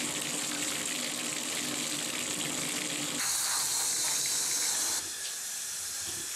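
Water running from a bathtub tap into the tub, with a steady hiss that changes about three seconds in and turns quieter about five seconds in as the flow is adjusted.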